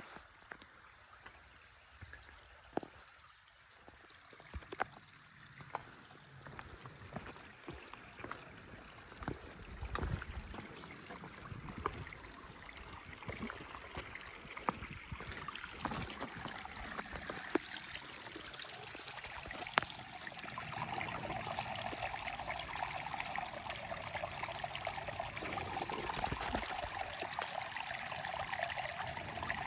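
Rain-fed desert creek running and trickling over rocks, getting louder over the second half, with scattered sharp clicks throughout.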